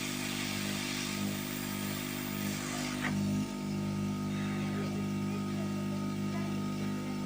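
Hot air rework blower running steadily, its fan humming and its hot air hissing while it melts the solder to seat a replacement sound IC on the receiver's circuit board. The hiss is strongest for the first three seconds, then eases.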